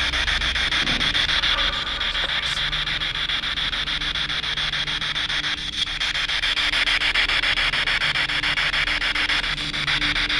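Handheld spirit box radio scanning through stations: a steady rush of static, chopped up rapidly and evenly as it sweeps.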